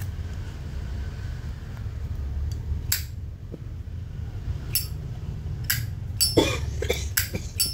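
Brass lid of a 1962 Zippo lighter being flipped open and snapped shut, giving sharp metallic clicks that come a few at a time, more often in the second half. The clear click is the lighter's original, unadjusted lid sound.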